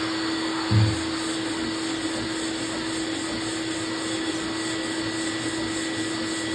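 Dust-extraction shop vacuum running with a steady hum while a sanding block is worked over body filler on a steel truck door, knocking down a high spot. A short low thump about a second in.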